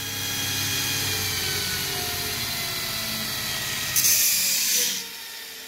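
An electric motor in the workshop spinning down, its hum falling slowly in pitch. About four seconds in comes a loud burst of hiss lasting about a second, after which the sound drops away.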